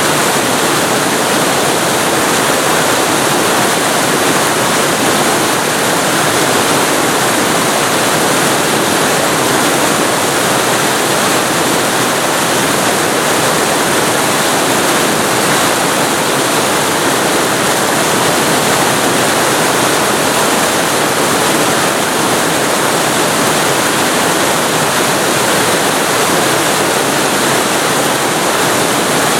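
Waterfall recorded close to the falling water: a loud, steady rushing hiss with no breaks or separate splashes.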